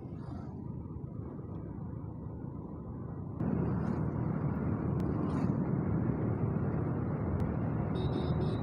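On-bike riding noise from a Hero Splendor Plus motorcycle coasting down a steep hill road: a steady rush of wind and engine noise that jumps louder about three and a half seconds in.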